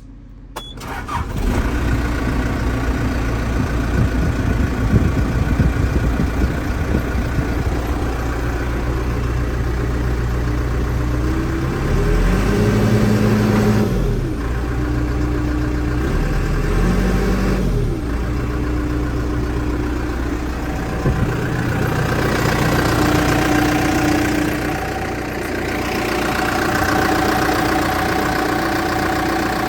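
New Holland B95 backhoe loader's diesel engine starting about a second in and settling to a steady idle. It is revved up and back down twice around the middle, then runs on with small changes in speed.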